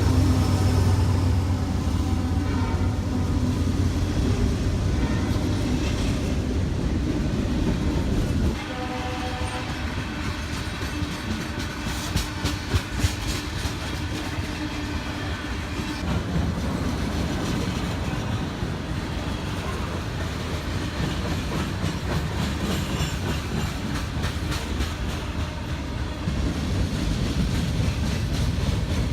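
Train passing close by: the locomotive's heavy diesel rumble, with horn tones, for the first eight seconds or so, then it drops off suddenly. The steady rumble and clatter of cars rolling over the rails follow.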